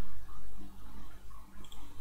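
Low electrical hum and room noise, wavering in level, with a faint click near the end.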